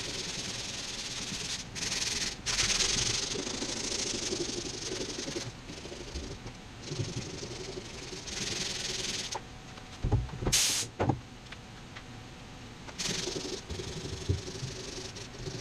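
80-grit sandpaper rubbed by hand over cured body filler on a van's metal roof, in uneven scratchy strokes of one to three seconds. There are a couple of knocks about ten seconds in.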